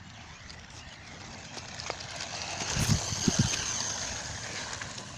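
Remote-control buggy driving, its electric motor whining over the rattle of wheels on the ground. The sound swells to a peak about halfway through, with a few low thumps, then eases off.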